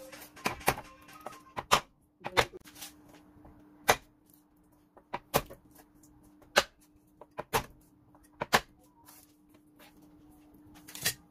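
Garlic cloves being smashed with the flat of a cleaver on a wooden chopping board: about a dozen sharp knocks at uneven intervals, loosening the skins.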